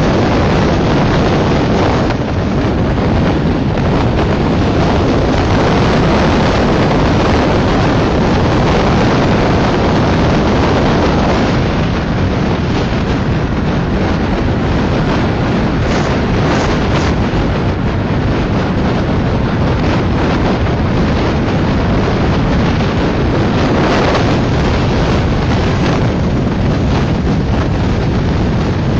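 Heavy wind rush buffeting a microphone held out of the window of a fast-moving train, over the steady rumble of the train running on the track.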